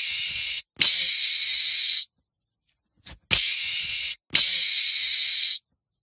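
Meerkat hissing: two pairs of harsh, breathy hisses, each hiss about a second long, the second pair coming a second or so after the first.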